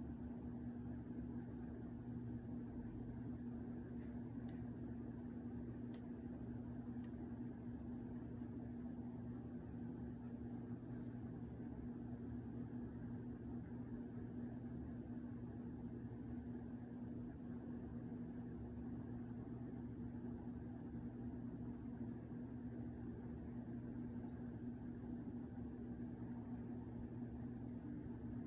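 A steady low electrical or motor hum with room noise, unchanging throughout, with a few faint clicks in the first half.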